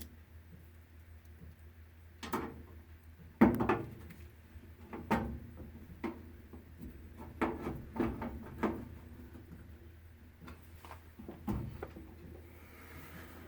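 Irregular knocks, clicks and rattles of tools and small parts being handled while working on a washing machine, the loudest knock about three and a half seconds in, over a low steady hum.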